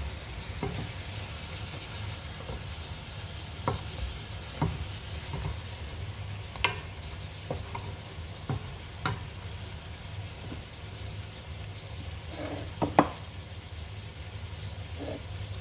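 Hamour (grouper) pieces sizzling steadily in a metal pot over fried onions and spices, while a spoon spreading the onion mixture over the fish knocks against the pot several times, the loudest knock near the end.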